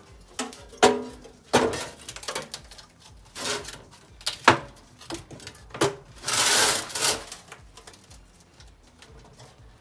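Sheet steel being handled and fitted by hand: a string of sharp metallic knocks and clanks, with a scraping rub lasting about a second about two-thirds of the way through.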